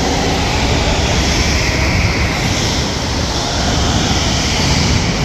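Go-kart passing close by on an indoor kart track, over a steady, loud din of karts running around the hall.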